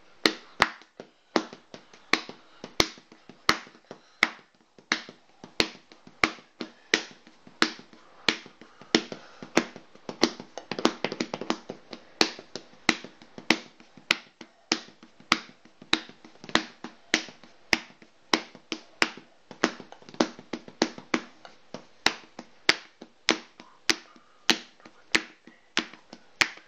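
A percussion beat of sharp taps and clicks in a steady repeating rhythm, a few hits a second.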